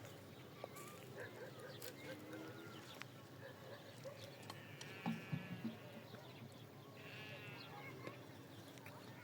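Bleating livestock, faint: two wavering calls, one about four and a half seconds in and another about seven seconds in, with a few soft knocks in between.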